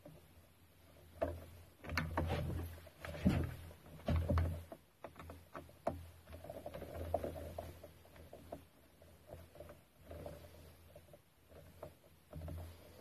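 Irregular clicks, knocks and rattles of hand tools and plastic and metal parts being handled and tightened while a grass strimmer's shaft is fitted back together, busiest in the first few seconds.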